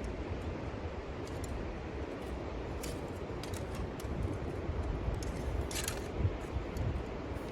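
Low wind rumble on the microphone, with a few light clicks and a short scrape of small camping gear being handled, most of them in the second half.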